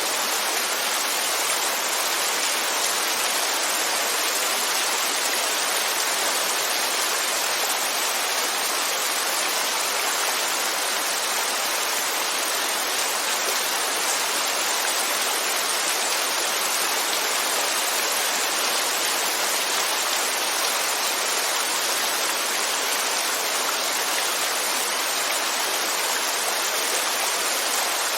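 Steady rainfall, an even unbroken hiss of falling rain with no distinct drops.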